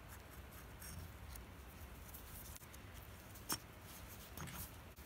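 Faint clicks and light handling noise of small steel lathe parts, the cross-slide nut and its set screw, being fitted together by hand, with one sharper click about three and a half seconds in. A low steady hum sits underneath.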